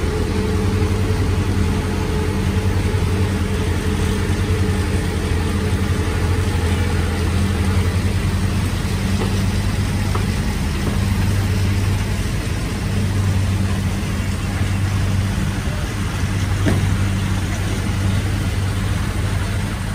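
Diesel engine of a Kubota crawler combine harvester running steadily as the machine crawls slowly across steel loading ramps.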